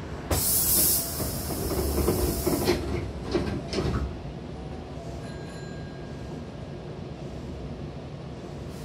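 Hankyu Kobe Line train's double sliding doors closing: a sudden loud hiss of air about half a second in, then the door leaves sliding, ending in a few knocks as they shut about three to four seconds in. After that only a steady low hum.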